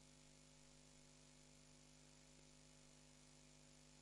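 Near silence: a faint steady electrical hum with a low hiss.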